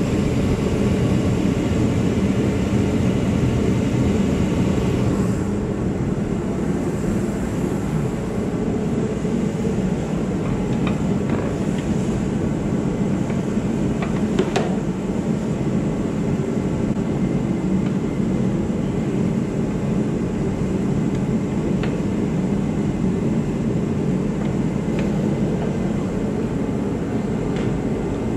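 Remington forced-air heater running, its fan and burner making a steady rushing noise. A few light clicks of hand tools sound over it.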